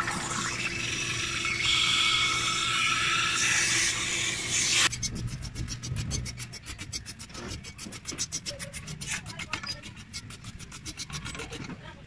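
Hose spray nozzle jetting water into an intercooler's inlet, a steady hiss that cuts off abruptly about five seconds in. A quick run of short squirts from a hand trigger spray bottle of soapy water follows.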